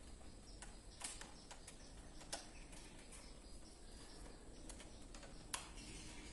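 Faint, scattered clicks and taps of a screwdriver and plastic miniature circuit breakers being handled in a distribution board, with sharper clicks about a second in, a little after two seconds and near the end, over a steady low background.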